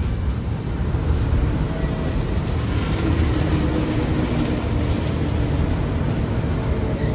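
Kintetsu Nara Line local electric train pulling into the station platform: a steady rumble of wheels on rail and running gear as the cars roll past, slowing to stop, with a faint held whine among it.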